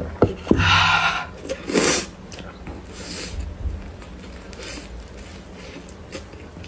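Two loud slurps from a bowl of liquid in the first two seconds, then quieter mouth sounds of biting into and chewing a soft bread bun.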